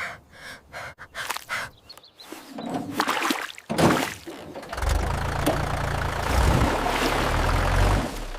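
A series of short, separate sounds, then about five seconds in an engine starts and runs steadily with a low rumble for about three seconds before cutting off.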